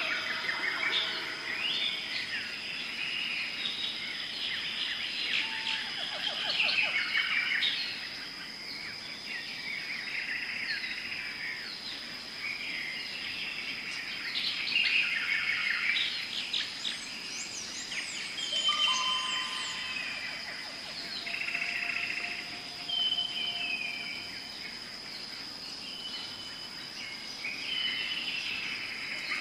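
Weaver birds chattering and calling over one another, many overlapping short buzzy and whistled calls, over a steady high-pitched tone.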